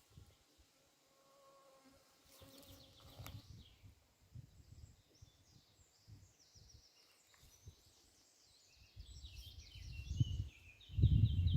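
Repeated high chirping calls in quick series, with a low rumble coming up and growing loud near the end.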